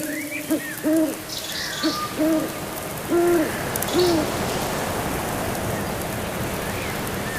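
A bird's low hooting calls, short and repeated about once a second, growing fainter and stopping about four seconds in, while a steady hiss builds underneath.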